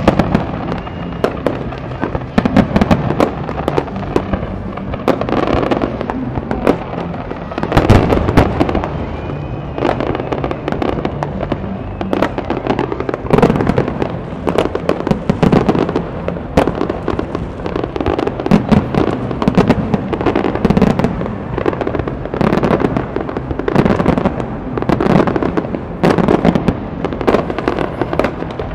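Aerial fireworks display: shells bursting one after another in frequent sharp bangs and crackles over a continuous rumble, with a heavier barrage about eight seconds in.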